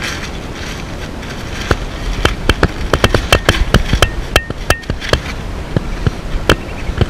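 Rustling and a quick run of clicks and knocks: a person shifting over loose attic insulation and wooden joists, with the gear close to the microphone.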